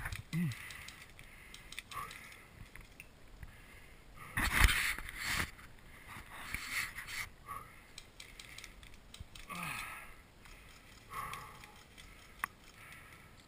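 Rustling and handling noise as a player moves among grass and dry brush, in scattered short bursts, loudest about four and a half seconds in.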